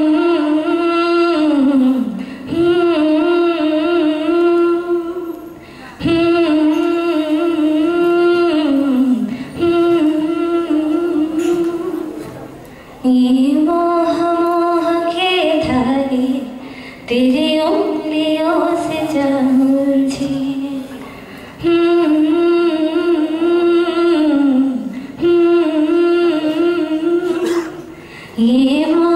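A woman singing solo, amplified through a microphone, in long held notes with slight wavering ornaments. The phrases last a few seconds each, with short breaths between them.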